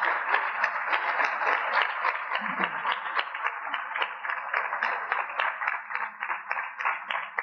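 Large audience applauding, a dense steady clapping that thins toward the end into fewer, more separate claps.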